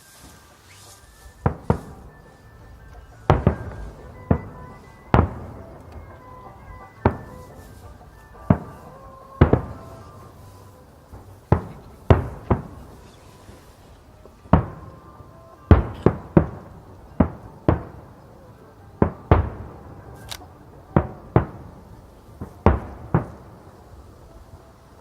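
Aerial firework shells bursting in a quick, irregular series of sharp booms, about two dozen, each trailing off briefly. Faint music plays underneath.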